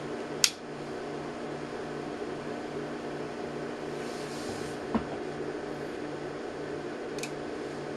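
Steady hum and fan noise from bench electronics, with a low buzz pulsing on and off about twice a second. A sharp click about half a second in and a softer one about five seconds in.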